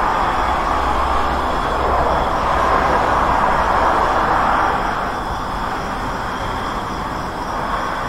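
Road traffic noise: a steady rush of passing vehicles with a low rumble, a little louder through the middle and easing off after about five seconds.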